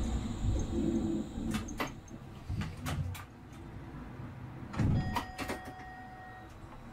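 Vehicle sounds: a low rumble that fades in the first two seconds, a few sharp clicks, then a door-like knock about five seconds in, followed by a steady high tone lasting about a second and a half.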